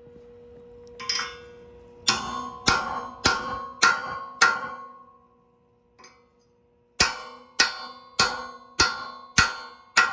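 A hammer striking the steel of a root rake, sharp ringing metal blows about every 0.6 seconds: a lighter tap, five blows, a pause of about two seconds, then a steady run of blows again. The bent steel is being beaten flat so it can be welded back on.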